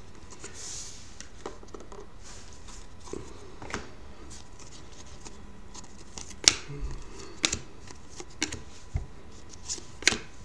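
A stack of foil-board trading cards being flipped through in the hands: scattered soft flicks and snaps of card stock over a low steady hiss, with a couple of sharper snaps about halfway through and near the end.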